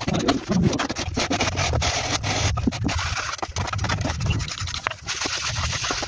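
Steel trowel and wooden float working wet cement plaster on a wall: repeated scraping and rubbing with many short clicks and taps of the trowel in the mortar.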